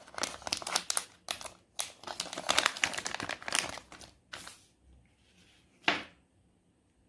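Crinkling, rustling handling noise of paper or wrapping being worked in the hands for about four seconds, as old bicycle headset bearings are wiped and picked up. A single sharp click or knock follows near six seconds, then it goes quiet.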